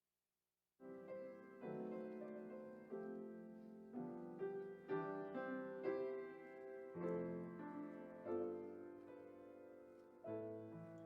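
Piano playing slow, quiet chords, each struck and then fading, starting abruptly about a second in.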